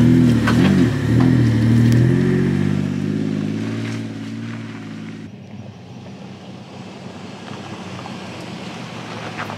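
Nissan Patrol 4WD's engine revving up and down as it crawls over a rocky dirt track, with stones clicking and crunching under the tyres, fading as it pulls away. About five seconds in, the sound changes abruptly to a faint engine against outdoor background noise.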